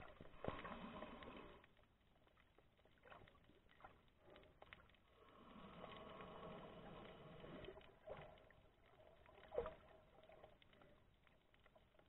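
Faint underwater ambience recorded by a submerged camera: soft, muffled swells of water movement twice, with scattered sharp clicks, the loudest one late on.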